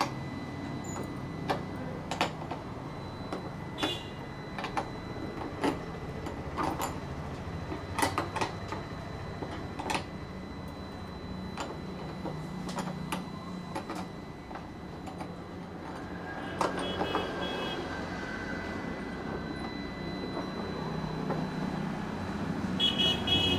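Metal hold-down clamps on a CNC router table clicking and clanking as they are loosened and taken off a carved wooden panel, over a steady hum with a faint high whine.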